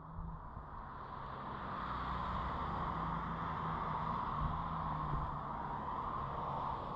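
Road traffic passing on a highway: a steady rush of tyre noise with a low engine hum, swelling over the first two seconds.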